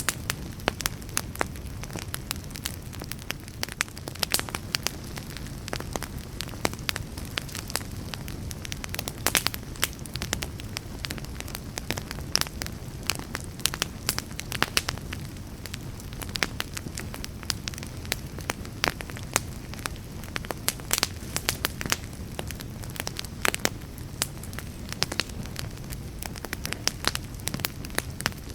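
Wood fire burning with a steady low rumble and frequent sharp, irregular crackles and pops.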